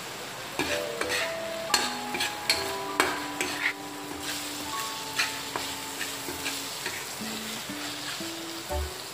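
Diced chicken sizzling in a metal wok while a metal spatula stirs it. Sharp scrapes and clinks of the spatula against the pan start about half a second in and come at irregular intervals over the steady sizzle.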